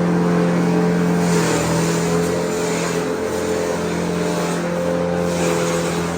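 Motor-driven farm machine running at a steady speed with a constant hum, while a hissing noise swells and fades about once a second.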